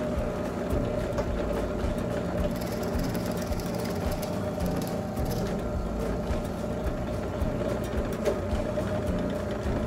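Bench drill press running steadily, its spinning head stripping the bark off a small pine stick pressed against it.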